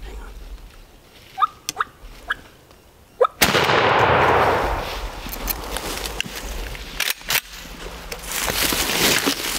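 A wild turkey gives a few short calls, then a shotgun blast about three seconds in, its report rolling through the woods for a second or so. Two sharp knocks follow a few seconds later.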